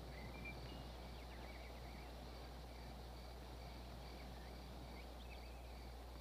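Faint outdoor ambience: scattered high bird chirps and short repeated high notes over a steady low hum, with no gunshots.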